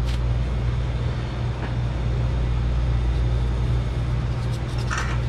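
Steady low machine hum, with faint rustling and scraping of gloved fingers stirring dry seasoning in a stainless steel bowl.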